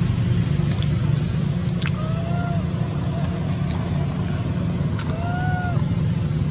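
A mother monkey giving two short, arched coo calls, about two seconds in and again about five seconds in, calling for her missing baby, over a steady low rumble.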